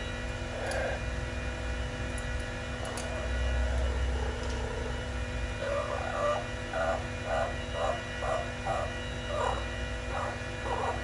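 Blue-fronted Amazon parrot giving a run of short repeated vocal notes, about two a second, starting about halfway through. A steady low hum sits underneath.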